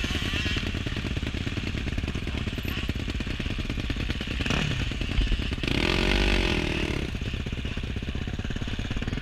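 KTM dirt bike's engine running at low speed, heard close from the rider's helmet. The revs rise briefly about six seconds in.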